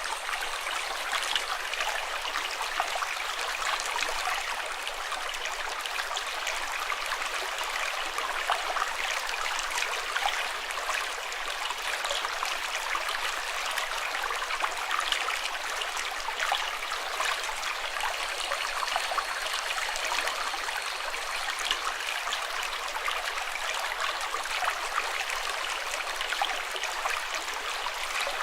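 Water of a stream running steadily, a constant even rush with fine splashing.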